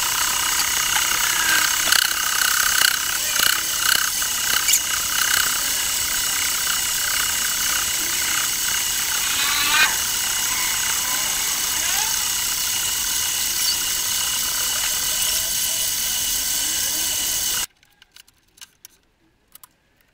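Mini lathe running with a steady whine while the cutting tool turns the edges of a square dural aluminium block flat, with scattered ticks and brief squeals from the cut. The running sound cuts off suddenly near the end, leaving a few faint clicks.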